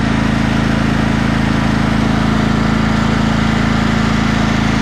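Lawn tractor engine running steadily at a constant speed, loud and close.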